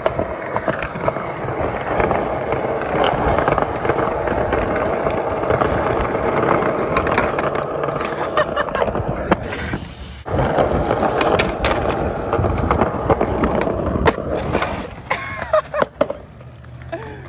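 Skateboard wheels rolling on concrete: a continuous rumble with sharp knocks now and then. The sound drops out briefly about ten seconds in, and after about fifteen seconds the rolling gives way to a few scattered knocks.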